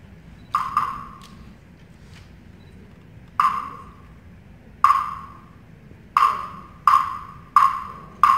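Sharp, ringing percussion strikes played solo: a quick double hit about half a second in, then single strokes spaced more than a second apart that come closer together near the end.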